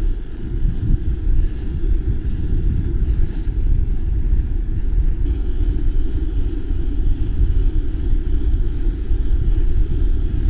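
Steady, loud rumbling of wind buffeting the microphone together with the tyres of a mountain bike rolling over the road.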